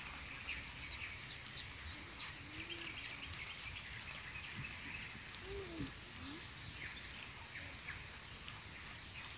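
Quiet rural outdoor ambience: a steady hiss with scattered light ticks and a few faint short calls, likely birds.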